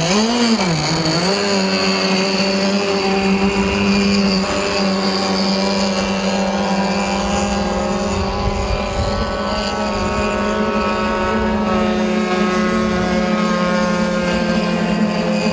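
CMB 26cc two-stroke petrol engine of an RC racing boat running at speed: the revs flare up and dip right at the start, then hold a steady, high-pitched note as the boat runs across the water.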